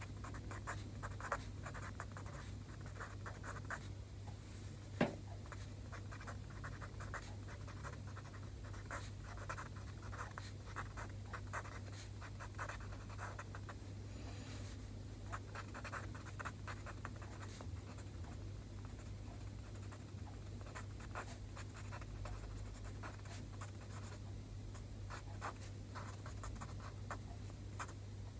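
A marker pen writing Chinese characters on paper: short scratchy strokes in quick runs with brief pauses between characters. There is one sharp tick about five seconds in, and a steady low hum underneath.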